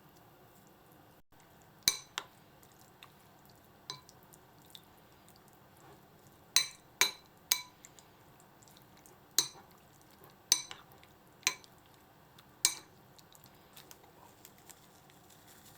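Utensils clinking against a dish: about ten sharp, ringing clinks at irregular intervals, with quiet between them.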